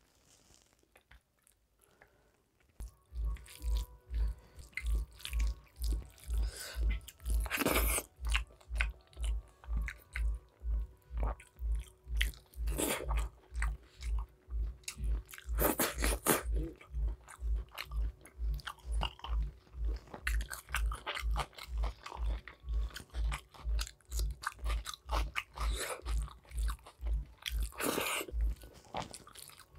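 Close-miked chewing of a mouthful of rice and mutton curry, a steady rhythm of about two chews a second with wet clicking mouth sounds, starting about three seconds in.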